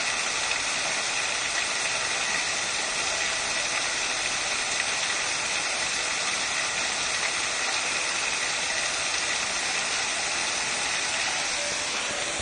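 Small Pelton turbine running at high speed, its water jet striking the buckets and throwing spray: a steady rushing, spraying noise with a faint steady whine in it.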